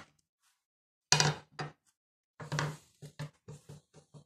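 Steel hand files with wooden handles being set down on a wooden workbench and nudged into line: a loud clunk just over a second in, another about a second later, then a quick run of light knocks.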